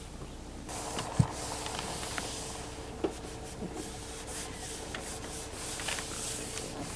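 Hands rubbing and pressing across the surface of a flexible solar panel, smoothing it down onto the RV roof to work out air pockets under its butyl adhesive backing. The rubbing starts about a second in as an uneven hiss that swells and fades with the strokes, with a single thump just after it begins.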